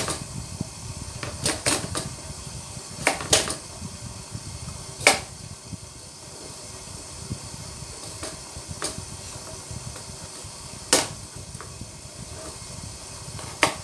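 Kitchen knife chopping carrots on a plastic cutting board: about ten sharp, irregularly spaced knocks of the blade hitting the board, over a steady low background noise.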